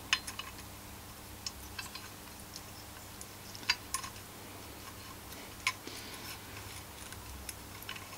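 Scattered light clicks and taps of small metal engine parts being picked up and handled on a workbench, the loudest about halfway through, over a low steady hum.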